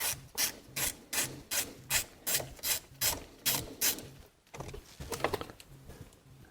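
Hand ratchet with an inverse Torx socket backing out a combination-switch mounting screw: a rasping pawl click on each back-swing, about two and a half a second, then stopping and giving way to a few fainter clicks near the end.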